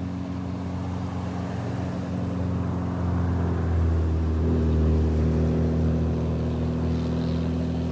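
A pickup truck and a car drive past on the mountain road, their engines running steadily. The engine noise grows louder about halfway through as they come by.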